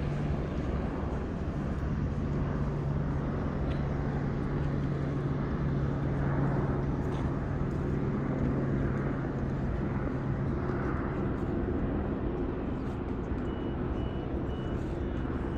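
Steady low engine drone holding one constant hum, with a short run of faint high beeps near the end.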